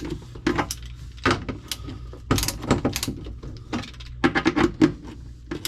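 Clicks and knocks of parts being handled and fitted into a dishwasher's drain assembly as a new drain piston and nut go in, with a quick run of clicks about four seconds in.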